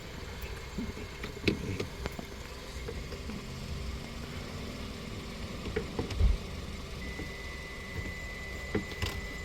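Steady low motor hum, like an idling engine, with scattered light clicks and knocks. A faint steady high-pitched tone comes in about seven seconds in.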